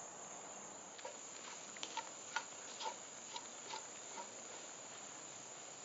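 Wooden spoon stirring sausage and hash browns in a cast iron Dutch oven, a soft click about twice a second as it knocks the pot, stopping about four seconds in. A steady chorus of insects chirring goes on throughout.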